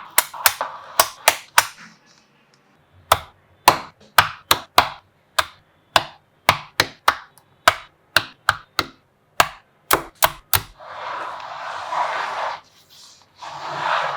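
Small magnetic balls snapping together one at a time in sharp, separate clicks, roughly one or two a second. Near the end come two longer stretches of rustling, rattling noise.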